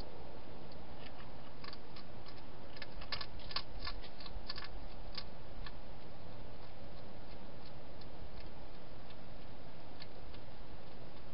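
Wild hedgehog crunching dry food: a run of short, sharp crunching clicks from about one and a half to five and a half seconds in, over a steady hiss.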